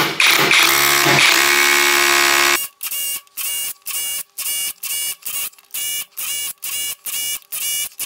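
SDS hammer drill with a 6 mm bit drilling into a plastered masonry wall: one continuous run of about two and a half seconds, then short, regular bursts about twice a second as a ring of holes is chain-drilled around a socket-box outline.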